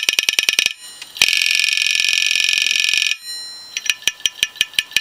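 Voice coil actuator of a Seagate hard drive, driven through an amplifier by a low-frequency test tone, snapping its head arm back and forth in a fast, even run of sharp clicks. About a second in the clicks speed up into a dense, high buzzing rattle for about two seconds, then stop and come back as a slower even ticking.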